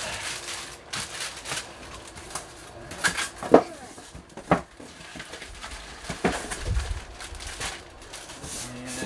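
Cardboard and plastic packing scraping, rustling and creaking as a flat-screen TV is lifted out of its shipping box. There are a few sharper scrapes and knocks, the loudest about three and a half seconds in, and a low thump near the end.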